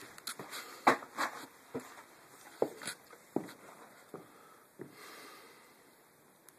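Footsteps and light knocks indoors: a string of irregular clicks and thuds, dying away about five seconds in.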